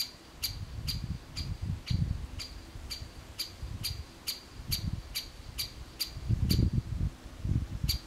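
Great spotted woodpecker giving a run of short, sharp 'kik' calls, about two or three a second, that stop about six and a half seconds in, with one more call near the end. Low wind rumble on the microphone comes and goes underneath and is loudest around the pause.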